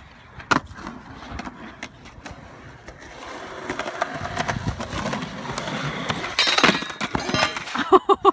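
Skateboard on rough concrete: a few sharp clacks of the board, then wheels rolling and growing louder as it comes closer, with a loud clatter near the end as the rider goes down.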